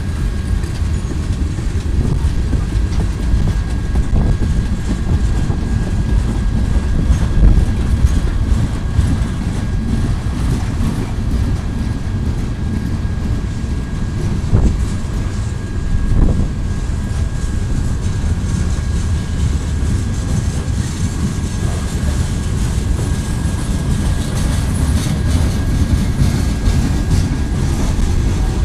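Freight cars of a mixed manifest train rolling past at close range: a steady heavy rumble with occasional knocks as the wheels clack over rail joints, and a thin steady high whine.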